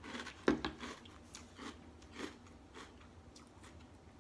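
A person crunching and chewing a mouthful of fruity candy cereal soaked in milk, a run of short crunches, the loudest about half a second in, thinning out near the end.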